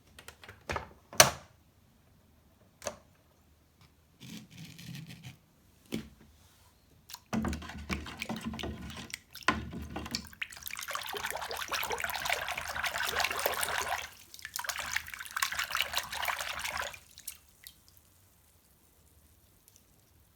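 A few sharp clicks and knocks of small hard objects being handled, then water running from a tap for about six seconds, with a brief break in the middle, before it is turned off near the end.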